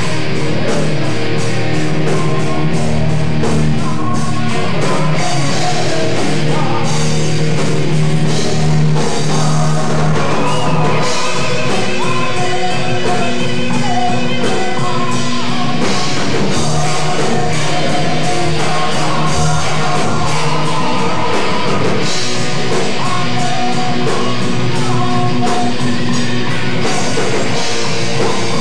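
Heavy metal band playing live and loud: distorted electric guitars and a drum kit, with a singer's voice over them.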